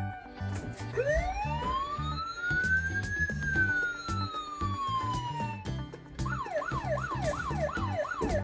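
Toy fire station's electronic siren sound effect: one slow wail that rises and then falls, followed near the end by a fast warbling yelp of about three cycles a second.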